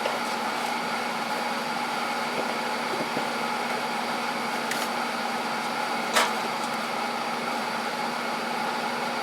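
Steady electrical machine hum with several fixed tones, and one sharp click about six seconds in.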